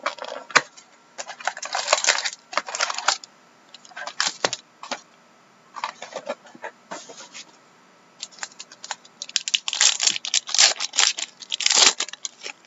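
Trading-card pack wrappers crinkling and tearing open, with cards rustling as they are handled, in irregular bursts. The densest bursts come near the end.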